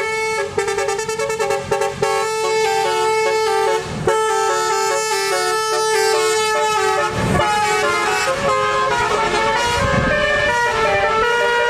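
Tour bus's Basuri telolet horn playing a tune: a run of loud horn notes stepping up and down in pitch, several sounding together. A low rumble swells twice in the second half.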